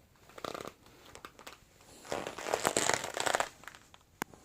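Thick, heavy PVC dress creaking and crinkling as the wearer moves: a short rustle about half a second in, then a longer, louder crackly stretch from about two seconds in. A single sharp click near the end.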